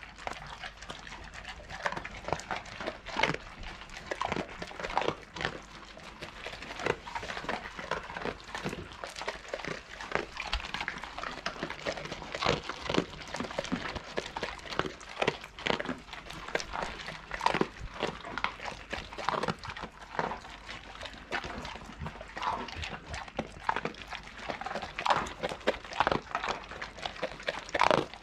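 A group of pit bulls and wolfdogs crunching dry kibble off a wooden plank floor: many quick, irregular crunches and clicks overlapping without a break.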